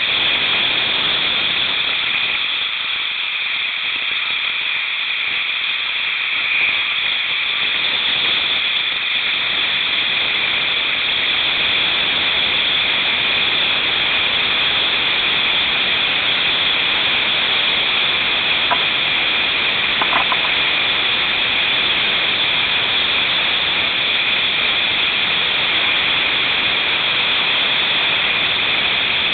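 Whitewater rushing through a creek rapid, heard from the water's surface as a steady, loud hiss.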